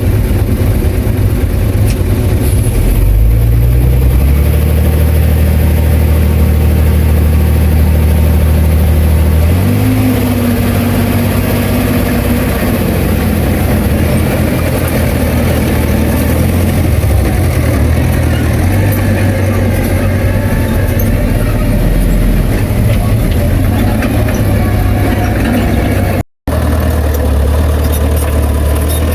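Bulldozer's diesel engine running loud under changing load, its note rising about three seconds in and shifting again near ten seconds. The sound cuts out for a split second near the end.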